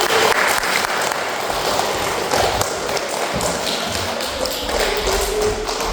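An audience of young children applauding, with many hands clapping at once. Near the end a child's voice sings a held note over the clapping.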